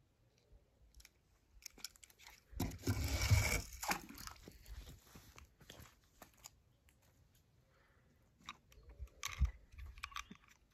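Small toy cars and play-set pieces being handled: faint scattered clicks and knocks, with a short crunchy scraping rush about three seconds in and another cluster of clicks near the end.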